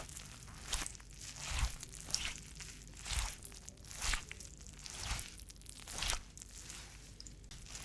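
Mop scrubbing a floor, pushed back and forth in swishing strokes roughly once a second, each with a soft low bump.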